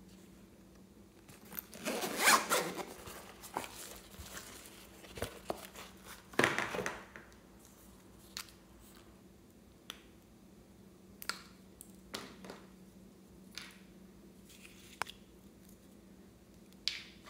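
Zipper of a pencil case being pulled, a long rasp about two seconds in and a shorter one at about six seconds. After that come scattered small clicks and taps as a glitter bottle and tube are handled.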